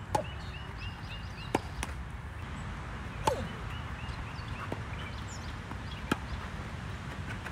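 Tennis ball being struck by rackets and bouncing on a hard court in a rally: single sharp pops a second or so apart, the loudest just after the start, about three seconds in and about six seconds in.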